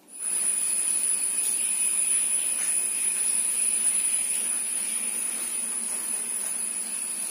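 Steady background hiss with a continuous high-pitched whine, starting as the doorstep recording cuts in and holding level throughout.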